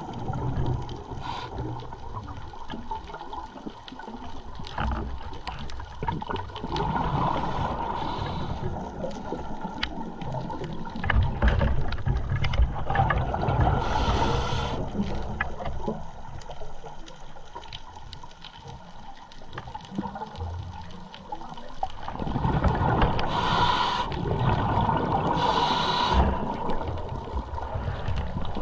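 Muffled underwater noise picked up through a camera housing, a steady low rumble of water with short bursts of bubbling about halfway through and twice near the end.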